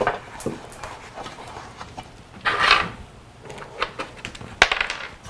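A hand rubbing around the inside of a bicycle tire on a rusty steel rim, feeling for anything sharp that could puncture the tube: scattered scuffing with a louder rasp about halfway through. A sharp knock comes near the end.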